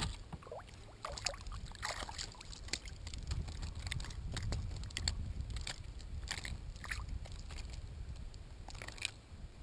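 A hooked fish thrashing and splashing at the water's surface beside a kayak as it is lifted out on the line: a string of irregular splashes over a low steady rumble.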